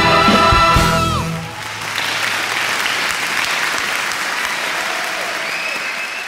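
A stage musical's band and cast end a number on a held sung note that slides down about a second in, then a theatre audience applauds, the clapping fading near the end.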